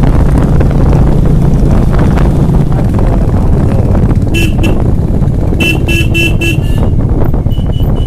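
Motorcycle engine running with wind noise while riding. A horn toots twice about four seconds in, then four short quick beeps around six seconds, with fainter beeps near the end.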